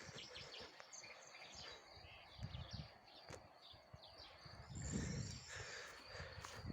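Outdoor ambience with small birds chirping in short high calls, over scattered low thuds and a louder low rumble about five seconds in.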